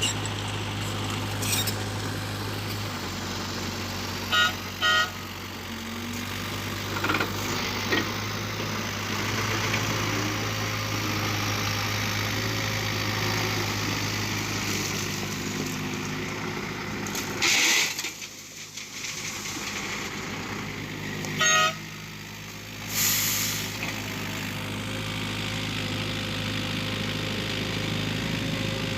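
Heavy vehicle engine running steadily, with a pair of short horn beeps about four seconds in and another beep past twenty seconds, and two brief hissing bursts in between.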